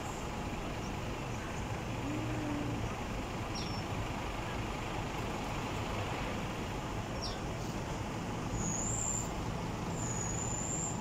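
Steady noise of city road traffic, with a few short high bird chirps, more of them in the second half.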